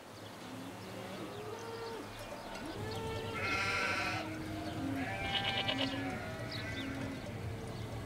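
A herd of goats bleating, many short calls overlapping, fading in, with louder, higher, quavering bleats in the middle.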